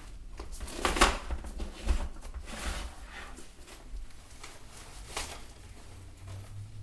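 Rustling and scuffing of a fabric backpack as a small plastic traffic cone is pushed into it, with a few louder swishes about a second in, around two and a half seconds in, and again past five seconds.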